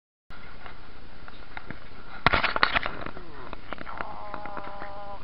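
Metal wire-mesh kennel gate clanking and rattling as it is unlatched and swung open, a burst of sharp knocks about two seconds in, followed by a brief high steady whine over a constant background hiss.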